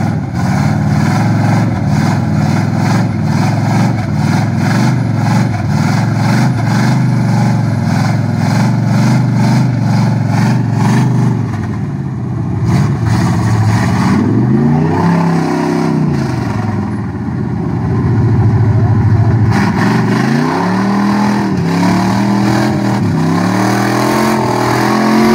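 Small-block Chevy V8 of a mud-bogging pickup running at high revs under heavy load as it pushes through deep mud and water. The revs hold high at first, then surge up and drop back in repeated pulls over the last several seconds.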